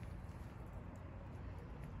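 Steady low room hum with a few very faint ticks, and no distinct event.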